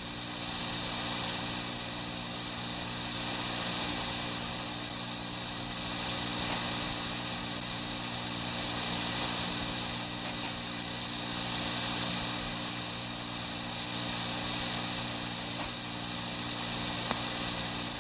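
Steady hiss and electrical hum of an old police dispatch tape recording in a gap between radio transmissions, with a few faint clicks in the second half.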